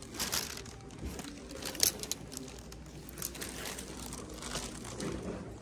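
Irregular rustling and crinkling of clothes and plastic hangers being handled on a store rack, with a sharp click a little under two seconds in.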